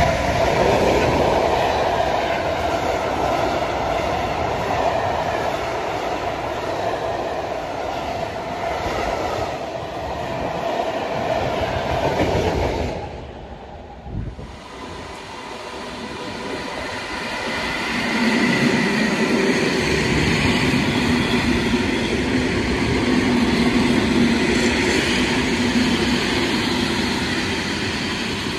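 A freight train hauled by a Newag Dragon 2 (E6ACTa) electric locomotive rolls past, its wagons clattering over the rail joints. About thirteen seconds in the sound breaks off, and an EN71 electric multiple unit then approaches and runs past with a steady tone over the rolling noise.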